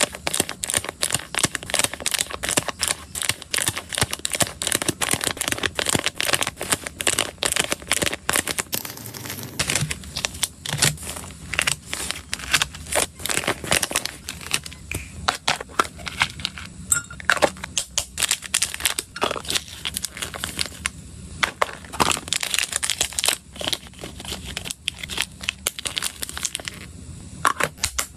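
Plastic snack packaging crinkling and rustling in the hands: small clear zip-top bags and a foil-lined pouch being handled, pressed and rubbed, in a dense run of fast crackling clicks.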